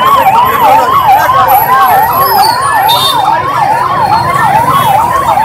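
Emergency vehicle siren sounding loudly in a fast yelp, its pitch sweeping up and down about two and a half times a second without pause.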